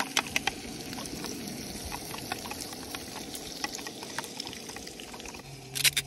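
Raw eggs being whisked with a fork in a plastic bowl: a wet sloshing with many quick clicks of the fork against the bowl. Near the end it changes to a low steady hum and a short sharp rasp of a spice grinder.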